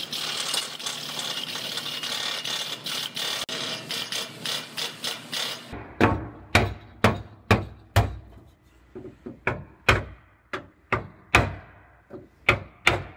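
Steady hiss of the Car-O-Liner pull tower's pump running while the chain pull is on the trunk floor; it stops suddenly about six seconds in. Then a hammer strikes a wooden block held against the sheet-metal trunk floor to ease it out under the pull, about two sharp blows a second at first, then lighter, quicker taps with a few harder blows.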